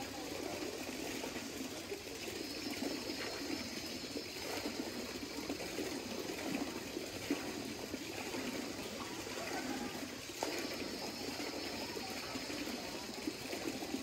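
Hot spring water running and splashing over small natural cascades, a steady rush.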